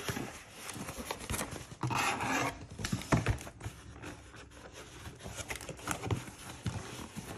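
Cardboard box flaps and a cardboard packing insert being handled and folded open: irregular scraping and rubbing of cardboard, with a louder rasp about two seconds in and a sharp knock about a second later.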